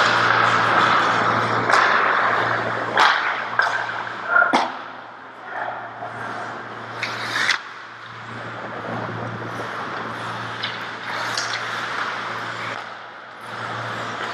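Ice hockey play: skate blades scraping and carving on the ice in waves, with several sharp clacks of sticks hitting the puck and each other, over a steady low hum.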